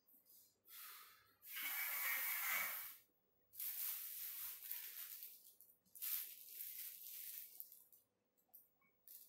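Clear plastic packaging wrap rustling and crinkling as a wrapped part is handled. It comes in four stretches of one to two seconds each, the loudest about two seconds in.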